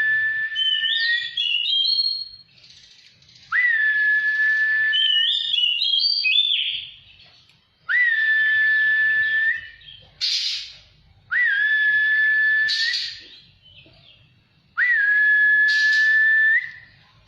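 Oriental magpie-robin (kacer) singing: five phrases, each a long level whistle about a second and a half long that opens with a quick upward slide. Some are followed by quick stepping higher notes, with short harsh rasping bursts between the later phrases.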